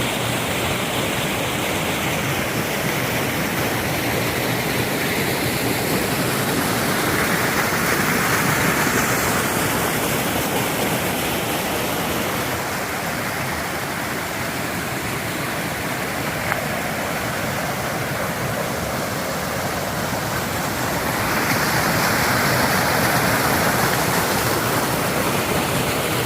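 Mountain valley stream rushing over rocks: a steady, loud rush of water that swells slightly twice.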